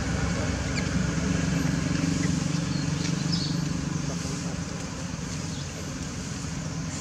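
A steady low engine hum, easing somewhat after about four seconds, with a few faint short high chirps over it.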